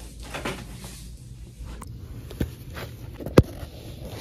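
Rustling and handling noise as small items in a box or bag are moved about, with a few light clicks and one sharp, loud click about three and a half seconds in.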